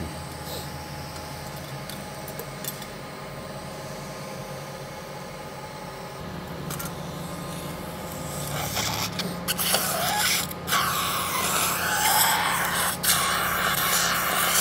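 Surgical suction hissing from about eight seconds in, louder toward the end with a few sharp clicks, over a steady hum of operating-room equipment.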